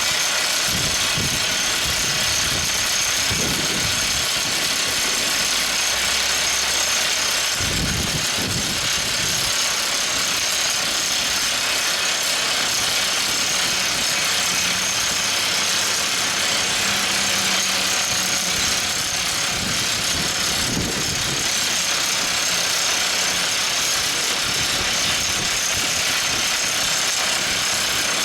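Everdigm ECD45E top hammer drill rig running: a steady mechanical din with a few low thumps.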